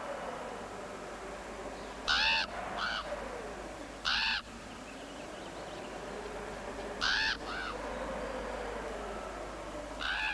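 Crow cawing: a pair of harsh caws about two seconds in, a single caw near four seconds, another pair near seven seconds and a pair at the end. Under the caws a faint tone slowly rises and falls.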